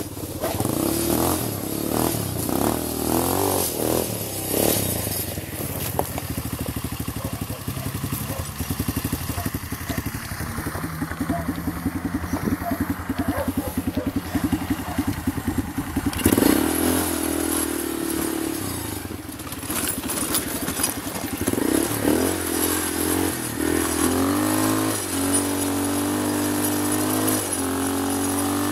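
Small quad bike's single-cylinder engine running and being revved, its pitch repeatedly rising and falling with a fast, even firing beat.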